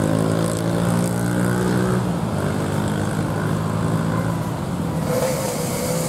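Motorcycle and scooter engines running and pulling away close by. Their engine tones shift about two seconds in, and a hiss comes in near the end.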